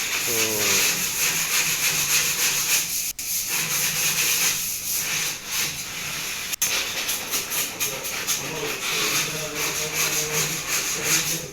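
Steady hissing background noise, with two brief dropouts about three and six and a half seconds in.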